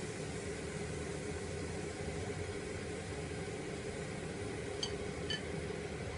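Two light, ringing clinks of a utensil or lid against kitchenware, about half a second apart near the end, over a steady rushing hum of kitchen noise while a pot heats on the stove.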